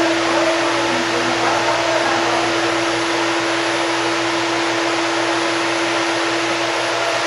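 An electric motor running steadily at full speed: an even rushing noise with a constant whine, unchanging throughout.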